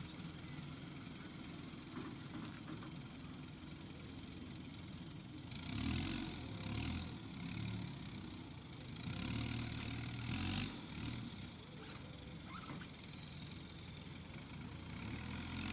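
Farm diesel engines running steadily, with a telehandler's engine revving up twice, about six and ten seconds in, as it raises its boom to lift wrapped hay bales onto the trailer.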